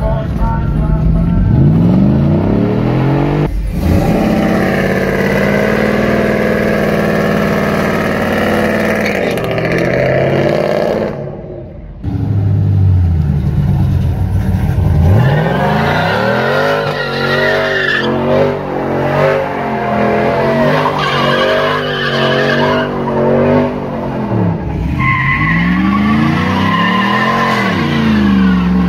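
Pickup truck engines revved hard during burnouts, pitch sweeping up and down, with the rear tires squealing as they spin. In the middle stretch the revs bounce up and down quickly. The sound breaks off briefly twice as it cuts from one truck to the next.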